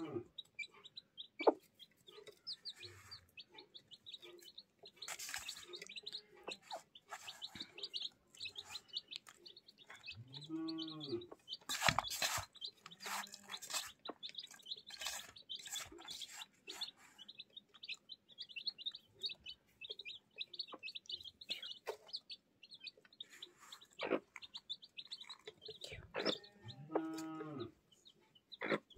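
Chicks peeping continuously in rapid, high-pitched notes. A broody hen gives two low, drawn-out calls, about ten seconds in and again near the end. Scattered sharp taps, the loudest a little before the middle.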